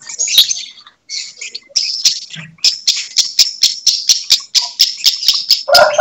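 Lovebirds singing a long, rapid run of high chirps, about five a second, which thickens into a steady trill after the first couple of seconds. A rooster starts crowing just before the end.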